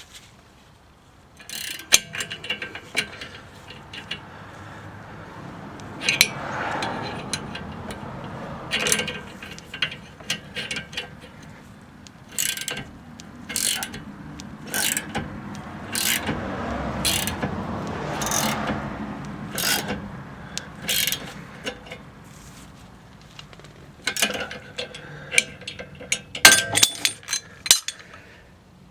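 Ratchet wrench clicking in repeated strokes as it tightens the 19 mm bolt of a ball joint remover, pressing the outer tie rod end out of the steering knuckle. There is a quick run of sharper clicks and knocks near the end.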